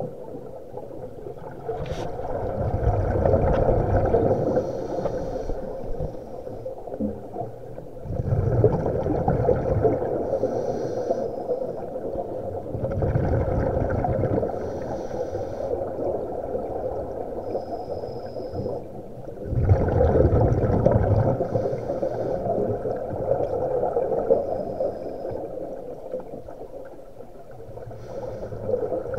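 Scuba breathing heard underwater: exhaled regulator bubbles rumbling out in muffled bursts of a few seconds, about every five or six seconds, with quieter gaps between breaths.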